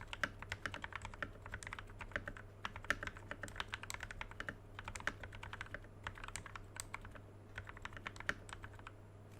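Typing on a Tecware Phantom Elite TKL mechanical keyboard fitted with Kailh Speed Silver linear switches lubed with Krytox 205g0, plate-mounted stabilizers and OEM stock keycaps: a fast, irregular run of keystroke clacks that thins out and stops near the end.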